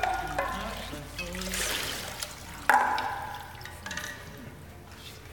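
Baptismal water splashing and trickling back into the font as it is poured over a bowed head, with a sharper splash about three seconds in.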